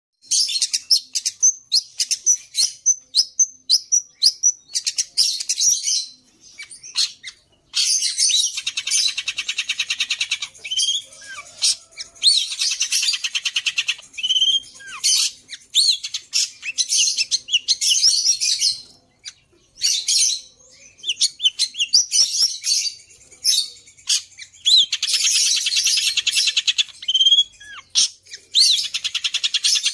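Long-tailed shrike singing a varied song: a quick run of sharp chirps, then long rapid trills broken by short pauses and rising whistled notes. The song is "isian", a repertoire learned by mimicking other songbirds.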